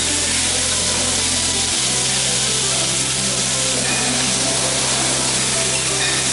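Food sizzling on a hot steel teppanyaki griddle, a steady frying hiss as meat and vegetables cook.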